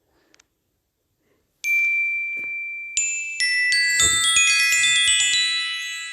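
Near silence, then from about one and a half seconds in a run of bright, bell-like chime notes struck one after another, each ringing on and overlapping the next, thickest from about four seconds in.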